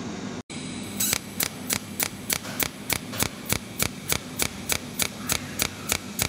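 Cold welding machine pulsing at a sheet-metal seam: an even run of sharp snaps, about three to four a second, starting about a second in. A low steady hum is heard before it.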